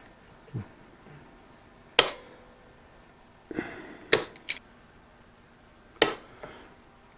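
Several sharp, irregular knocks and clinks of hand tools and metal hardware being handled, one followed by a brief metallic ring.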